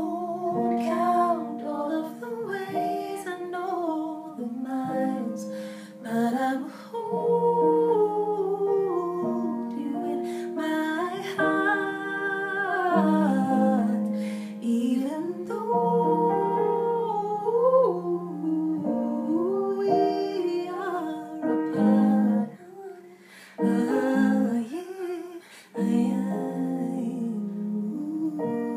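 A woman singing a slow melody with smooth gliding pitches, over sustained musical accompaniment, with a couple of brief pauses between phrases.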